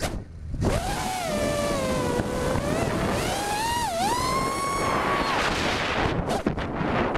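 FPV quadcopter's brushless motors (Cobra 2204 2300KV) and 5-inch props whining, the pitch gliding up and down with the throttle, over wind rush on the onboard camera. The whine drops out at the very start, dips sharply about four seconds in, and cuts out briefly several times around six seconds, which is the throttle being chopped for flips and rolls.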